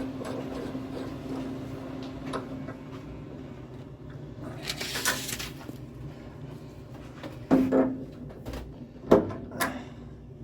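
Hand tools and valve fittings being handled during a radiator valve change: a low steady hum fades after about three seconds, a brief hiss comes about five seconds in, and sharp metal knocks and clanks follow near the end.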